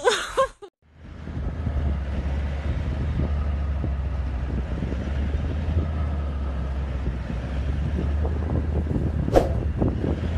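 Steady low drone of a vehicle driving along a dirt track, with wind noise on the microphone. A single short, sharp sound comes near the end.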